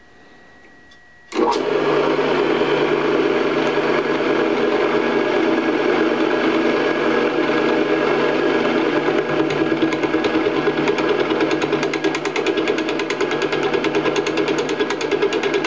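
Belt-driven Craftsman drill press converted for milling, running with a milling cutter taking a light 0.005-inch pass. The sound comes in suddenly about a second in, then runs steadily and loud, with a fine rapid chatter in the upper range in the second half.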